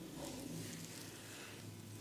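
Soft rubbing and squishing of oiled hands massaging the scalp and hair, over a steady low hum.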